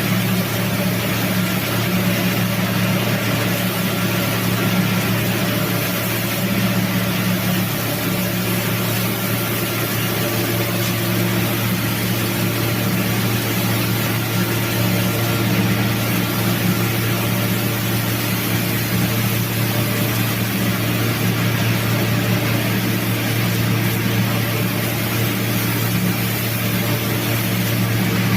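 Industrial knitting machine making textile fabric, running steadily with a low hum and an even hiss over it.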